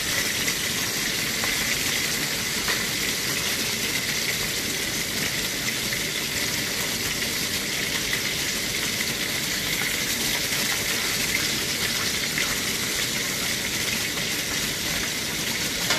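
Small whole fish deep-frying in hot oil in a wok: a steady, dense crackling sizzle of bubbling oil.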